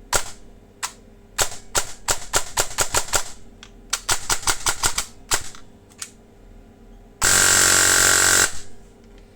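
Airsoft electric gun with an 18:1 DSG gearbox and a brushless motor firing. It fires separate single shots, then two quick runs of rapid single shots, then a full-auto burst of about a second and a half near the end, the loudest part.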